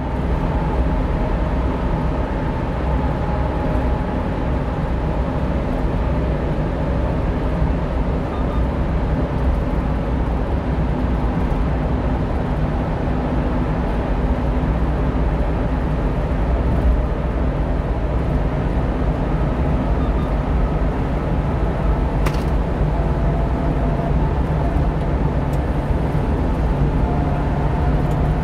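Steady engine and road noise of a 1-ton truck cruising at highway speed, heard from inside the cab while driving through a road tunnel.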